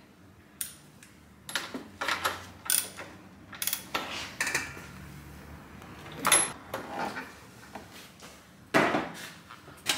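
Ratchet and spark-plug socket clicking and clanking as a spark plug is screwed back into a scooter engine, with scattered tool knocks and a louder knock near the end.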